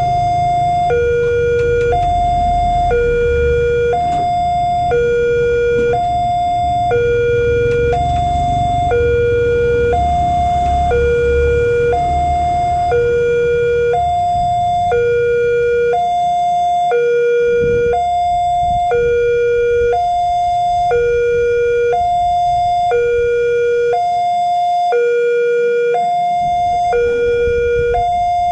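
Railway level crossing warning alarm sounding its steady two-tone signal, a lower tone and a higher tone of about a second each, alternating evenly. It is the crossing's warning that a train is approaching while the barrier is down.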